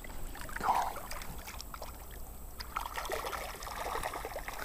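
A released bass splashing off through ankle-deep creek water just under a second in, then the creek trickling over the shallows.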